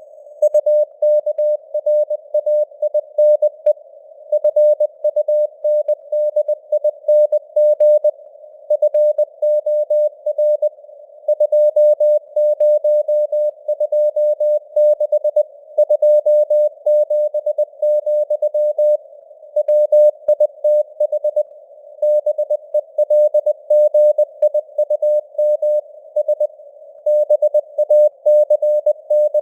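Morse code (CW) at 20 words per minute: a single tone of about 600 Hz keyed in dots and dashes, over a narrow band of simulated radio hiss. The signal strength rises and falls a little, a simulated fading (QSB).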